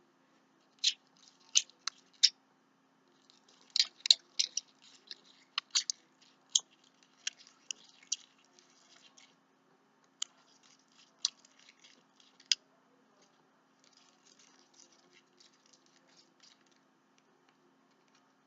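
Shampoo slime being squeezed and worked by hand, giving irregular sharp, wet clicks and pops in quick clusters. The clicks thin out to faint ticking for the last few seconds.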